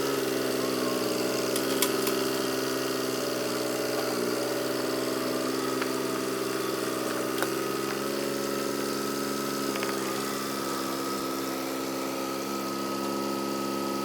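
An engine running steadily, its pitch dipping briefly about four seconds in and again near ten seconds, with a couple of light clicks over it.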